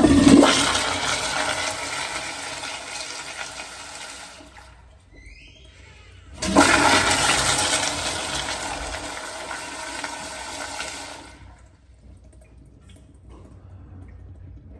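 Kohler toilet flushing twice: each flush starts with a sudden loud rush of water that fades out over about four to five seconds. The first is right at the start, the second about six and a half seconds in, with a brief faint rising squeak between them.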